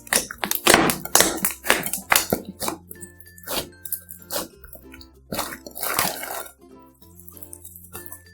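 Slime being squeezed and mixed by hand: a string of loud, irregular squishing sounds, the biggest about a second in and again near six seconds, over light background music.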